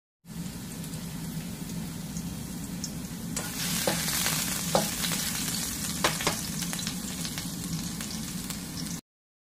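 Minced garlic sizzling in hot oil in a frying pan while a spatula stirs it. The sizzle grows louder about three seconds in, a few sharp taps of the spatula on the pan come through, and the sound cuts off suddenly near the end.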